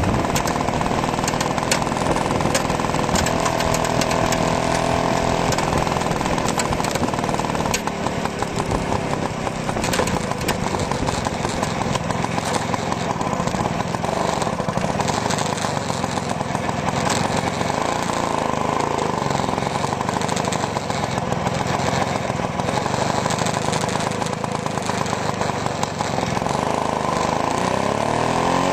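1954 BSA D1 Bantam's 125 cc single-cylinder two-stroke engine running steadily with a fast, buzzy firing beat.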